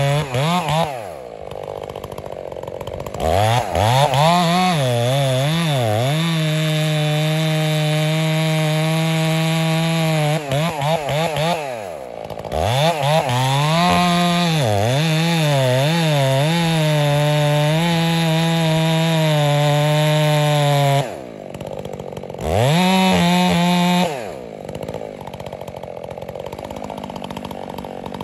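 Stihl MS 661 two-stroke chainsaw with a 36-inch bar cutting into a large pine trunk. The engine drops to idle, revs up with its pitch wavering as the chain bites, then holds a steady high pitch at full throttle through the cut; it does this twice, gives one more short burst, and falls back to idle near the end.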